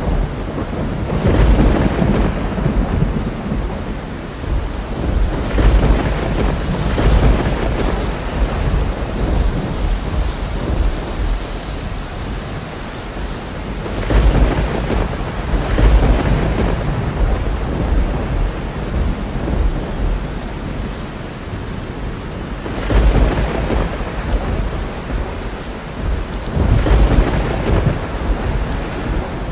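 Thunderstorm: steady heavy rain with rolling thunder that swells and fades several times, the loudest rumbles about two seconds in, around the middle, and near the end.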